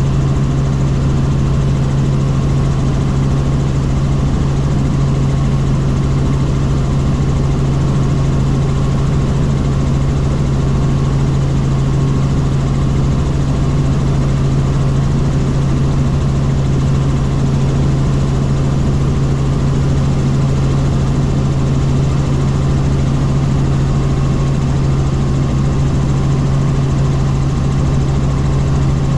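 Helicopter in flight: the steady, unbroken drone of its rotor and engine, with a strong low hum throughout.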